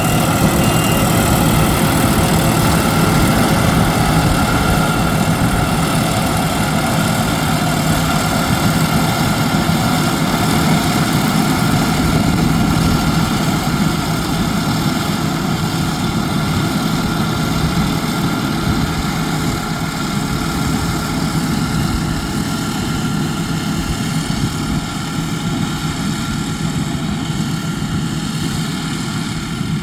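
Yanmar YH6115 six-row rice combine harvester running steadily while harvesting, its engine and threshing machinery making a loud, even drone that fades slightly toward the end.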